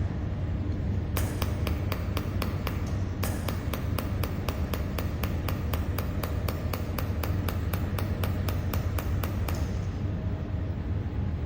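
Mold-repair laser welding machine firing pulses: a rapid, even train of sharp ticks, about four a second. They start about a second in, break briefly near three seconds, and stop near ten seconds, over a steady low hum.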